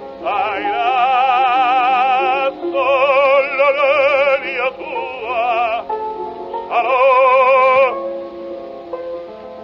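Operatic baritone singing an Italian aria with orchestra: several long held notes with a wide vibrato, then the orchestra alone near the end.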